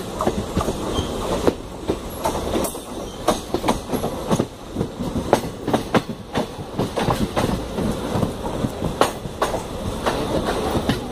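Wheels of a passenger coach clattering over rail joints and points: an irregular run of sharp clicks and knocks over a steady rumble, heard from the coach's open doorway.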